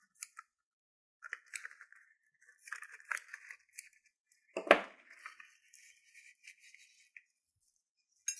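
Scissors snipping open a rubber balloon and the balloon rubber and paper confetti inside rustling as they are handled, in irregular crinkly bursts. One sharp, louder knock about halfway through.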